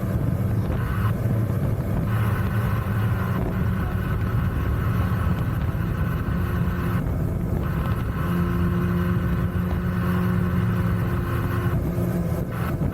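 Mini jet boat engine running steadily under way, with wash and wind noise from the hull moving across the water.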